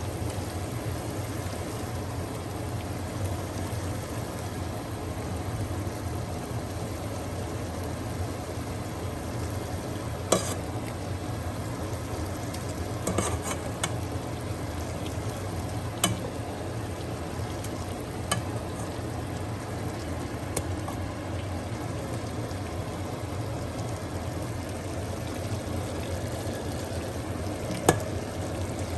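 Egusi soup cooking in a pot, a steady sizzle over a low hum, with several sharp clinks of a stirring utensil against the pot scattered through.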